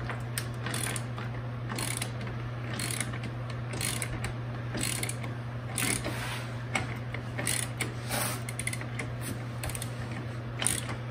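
Hand socket ratchet on an extension clicking in short irregular runs on its back-strokes while loosening a bolt.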